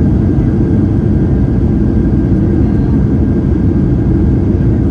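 Steady, loud low rumble of a Boeing 737-800 heard from inside the passenger cabin: engine and airflow noise, with an even hiss above it.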